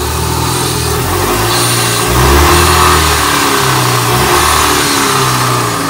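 A vehicle engine running, its speed rising and falling several times.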